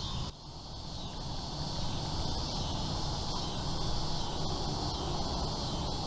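Steady outdoor ambience: a low rumble with a steady high insect drone above it. The level dips briefly just after the start and then builds back.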